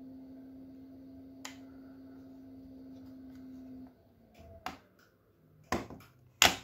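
Small handheld electric device's motor humming steadily, then switching off about four seconds in. Several sharp clicks and knocks of the device being handled follow, the loudest near the end.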